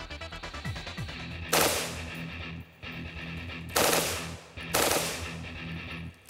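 SIG 552 Commando rifle firing three bursts of full-automatic fire, the first about a second and a half in and the last ending just before the end, over background music.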